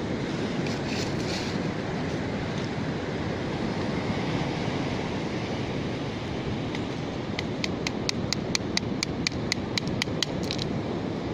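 Steady surf and wind noise on the beach. In the second half comes a run of sharp, evenly spaced clicks, about five a second, lasting some three seconds.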